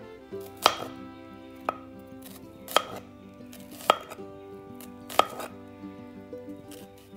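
Kitchen knife slicing a red onion held in the hand: five sharp cuts about a second apart, with lighter ticks between them.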